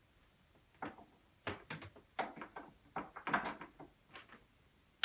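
A 3D printer being shifted and handled on a desk: about a dozen short knocks and clatters over three seconds, the loudest bunched together a little past three seconds in.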